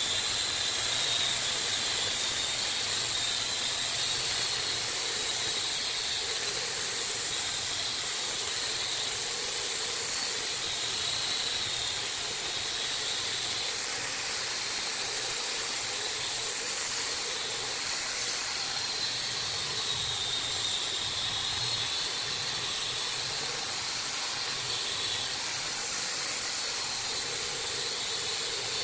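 Angle grinder with a sanding disc running against a wooden blank spinning on a lathe: a steady high whine over an even sanding hiss, the whine's pitch wavering slightly as the pad is worked over the surface.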